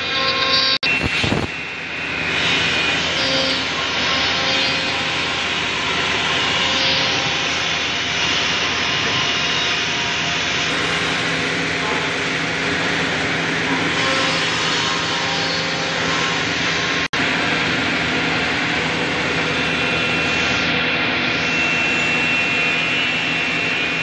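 Woodmaster CNC router machining centre running steadily, its high-speed spindle whining over a dense hiss as it cuts wooden chair parts, with dust extraction running. The sound breaks off for an instant twice.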